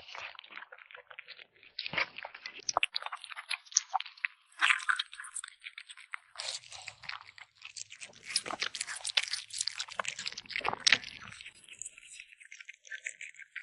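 A kitten chewing and crunching meat up close: a fast, irregular run of crunches and clicks.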